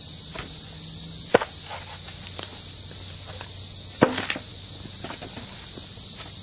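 Two sharp wooden knocks about three seconds apart, as log sections are dropped onto other logs, with a few lighter knocks and twig snaps of footsteps on the stick-strewn ground between, under a steady high insect drone.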